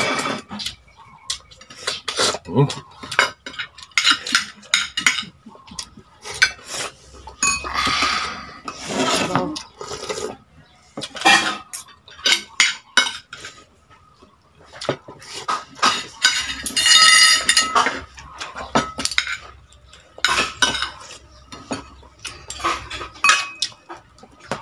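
Metal fork and spoon clinking and scraping against a plate of rice and pork during a meal, in irregular short clicks, with two longer, noisier sounds about eight and seventeen seconds in.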